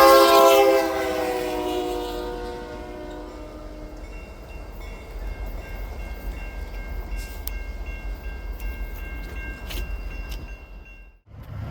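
A train horn sounding loudly, breaking off about a second in and fading over the next two seconds with a slight fall in pitch. It is followed by the steady rumble of the passing train, with faint high ringing tones and a few sharp clicks, until the sound cuts off near the end.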